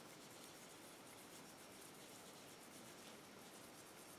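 Near silence, with faint rubbing of a cloth polishing the metal of a revolver.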